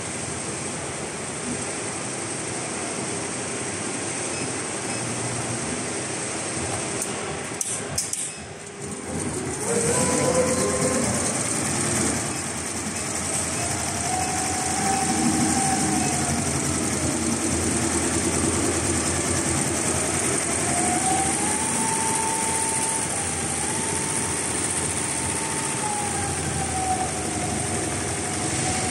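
Richpeace multi-head computerized embroidery machine running, a dense, steady mechanical clatter of needles and frame drive. About eight seconds in it briefly dips, then comes back louder with a whine that slowly rises and falls in pitch.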